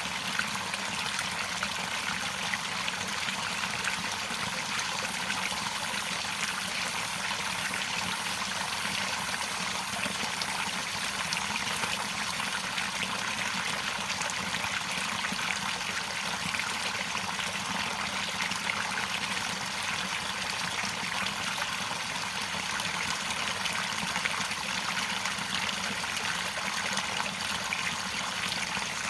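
Running water flowing and trickling steadily, like a stream over rocks.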